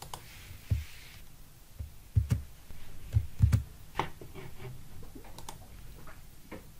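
Computer keyboard and mouse clicks, about eight separate irregular taps, several with a dull thump.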